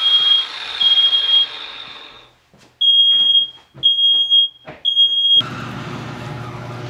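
Smoke detector going off: loud, high-pitched beeps about two-thirds of a second long, in the three-beep pattern of a smoke alarm. After the last beep, about five seconds in, a steady noise with a low hum carries on.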